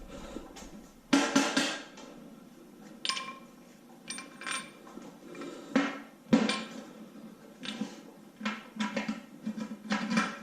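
Metal parts and tools clanking and clinking as they are handled, about a dozen separate knocks, several leaving a brief metallic ring.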